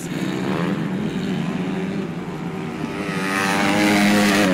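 Winged sprint car engine running on a dirt oval track, growing louder as the car comes close near the end.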